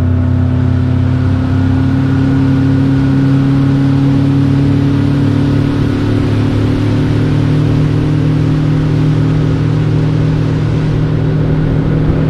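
Boat outboard motor running at a steady cruising speed, its note creeping slightly higher partway through, then cutting off abruptly near the end.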